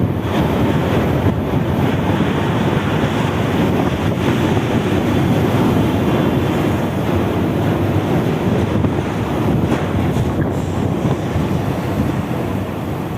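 Strong wind buffeting the microphone: a loud, steady, fluttering rumble.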